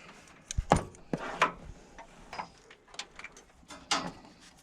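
Irregular clicks and clacks of hand tools and wire connectors being worked as a wiring harness is joined. The loudest sharp knocks come in a cluster about a second in, and lighter ticks are scattered after.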